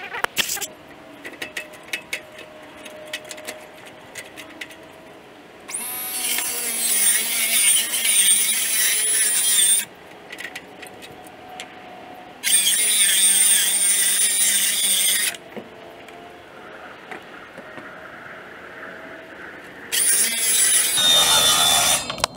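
A power tool running in three bursts of three to four seconds each, a hiss with a high, slightly wavering whine, after a string of sharp clicks and taps.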